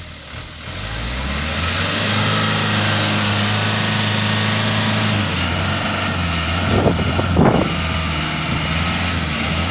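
Hino 4x4 truck's diesel engine revving up, then running steadily under load. Its note drops about five seconds in, and a brief louder sound comes about seven seconds in.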